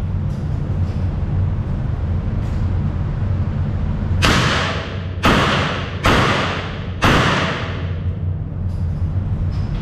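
Four revolver shots about a second apart, starting about four seconds in, each ringing off in the reverberation of an indoor range. A steady low hum runs underneath.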